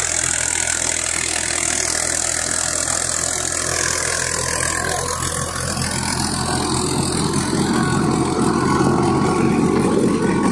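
Farm tractor's diesel engine running steadily under load, pulling a rotary tiller through dry, cloddy soil, together with the tiller churning the earth. The sound gets louder about halfway through.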